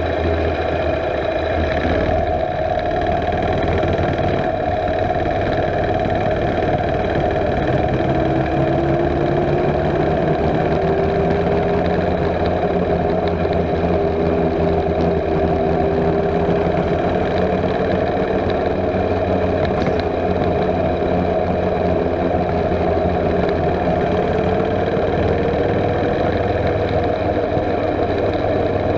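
Mini bike's small gasoline engine running steadily under way, its pitch climbing slowly about a third of the way in and again near the end.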